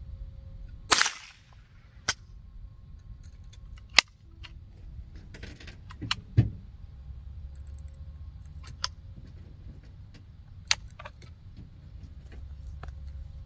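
Sharp .22 rifle shots fired one at a time at uneven intervals, the loudest about a second in with a short ring after it, some fainter than others. The rifle's magazine is the one the shooter blames for trouble.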